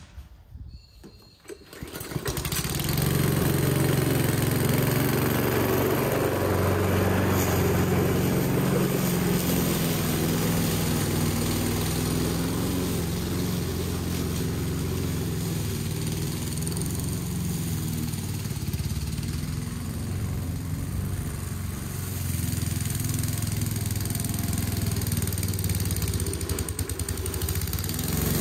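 Aldi Ferrex self-propelled petrol lawn mower engine catching about two seconds in, after a few faint clicks, then running steadily and loudly.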